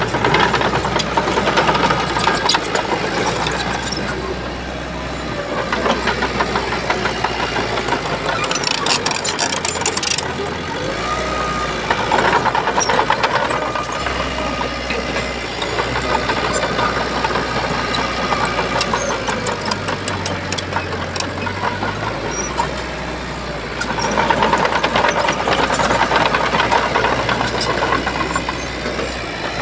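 Shantui bulldozer's diesel engine running under load, swelling louder several times as it works, with scattered clanks.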